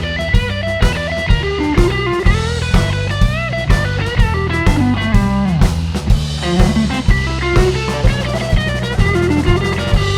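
Blues-rock shuffle played by a band: an electric guitar line with bent, sliding notes over a drum kit keeping a steady beat of about two hits a second and a moving bass line.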